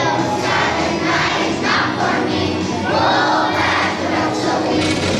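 Children's choir singing a Christmas song.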